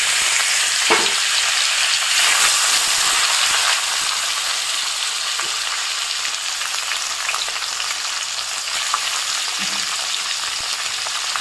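Shingi (stinging catfish) frying in hot mustard oil in a kadai: a steady sizzle, loudest in the first few seconds after the fish go in and then easing a little, with a few light pops.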